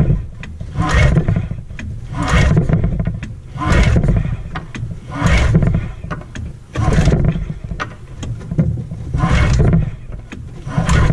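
Recoil starter on a Ski-Doo Formula 500 snowmobile pulled again and again, about eight hard pulls roughly one every second and a half, each spinning over its two-stroke engine, which does not catch and run.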